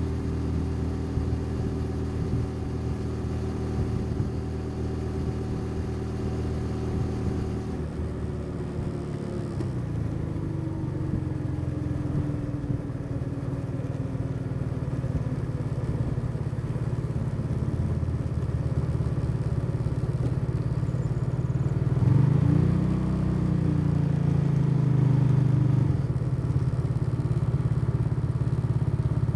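Motorcycle engine running under way, seemingly from the rider's position. Its pitch drops about eight seconds in as the bike slows, holds lower for a while, then rises briefly about twenty-two seconds in as it picks up speed again.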